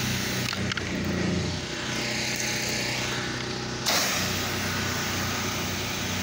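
Pressure washer's engine running steadily while spraying cleaning solution onto the driveway; the spray hiss cuts out with a couple of clicks about half a second in and comes back sharply about four seconds in.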